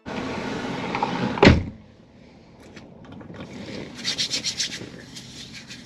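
Handling and rustling noise inside a car, with one loud thump about a second and a half in, after which the background hiss drops away. A few light clicks follow, then a quick run of rubbing scrapes around four seconds in.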